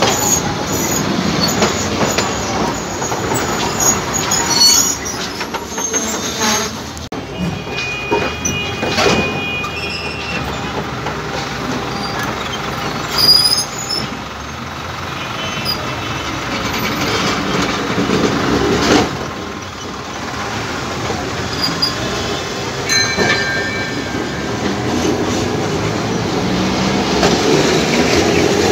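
Alexandria tram cars rolling past close by, steel wheels rumbling and clanking over the rails, with short high wheel squeals about eight seconds in and again near the twenty-three-second mark.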